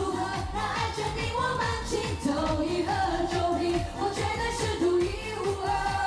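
Mandarin pop song with singing over a steady, driving beat.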